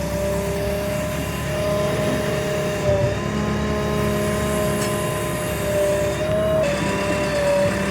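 JCB 3DX backhoe loader's diesel engine running steadily under load, with a steady whine over it.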